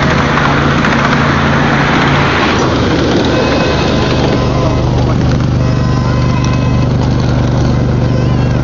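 Ride-on miniature railway train running along the track: a steady rumble and clatter of the wheels on the rails with a steady low hum underneath. It is harsher for the first two or three seconds, then settles.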